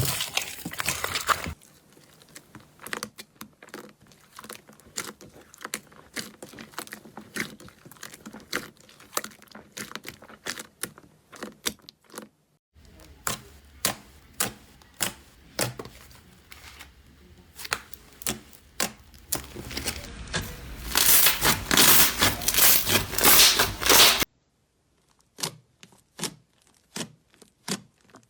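Slime being handled, with irregular sharp crackling and popping clicks. The sound changes abruptly a few times, and a denser, louder crinkling spell comes a little before the end.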